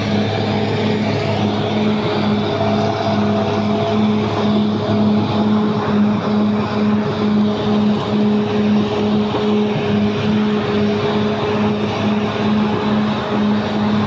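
Caterpillar D6R XL crawler bulldozer's diesel engine running steadily as the dozer travels along a track, with an even pulsing beat under the engine note.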